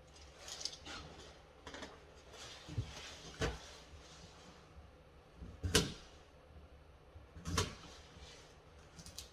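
Handling noise from working on a light switch and its wiring: a series of short knocks and clicks spread irregularly, the loudest about six seconds in.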